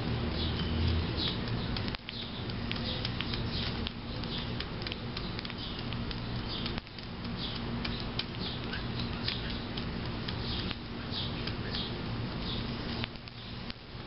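A dove and sparrows pecking birdseed from a plastic plate on concrete: irregular light taps and small rattles of seed, many to the second, over a steady low hum.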